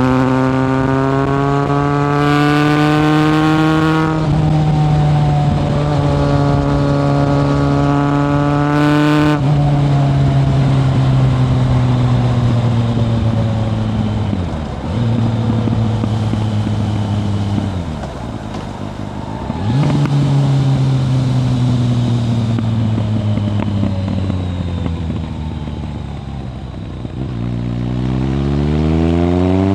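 Kawasaki ZRX1100's inline-four through a Yoshimura exhaust, heard while riding: the engine revs climb through two upshifts, then it comes off the throttle and slows through downshifts, and near the end it accelerates again.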